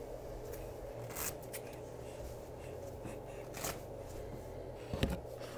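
Soft rustling and handling noises with a few light clicks, the loudest about five seconds in, over a steady low hum.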